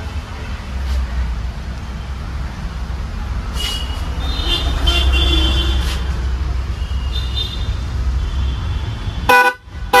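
Hella Midnight Black twin-tone horn pair giving two short blasts near the end, over a steady low rumble. The two horns are touching each other, so the tone does not come out properly.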